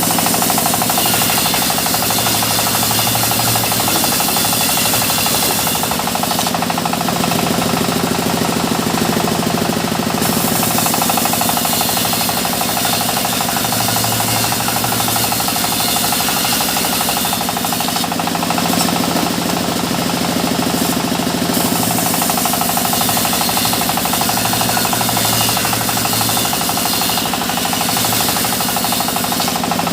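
Sawmill machinery running continuously: an engine with a steady knocking rhythm, and a saw cutting mahogany, whose high hiss eases off and comes back a few times.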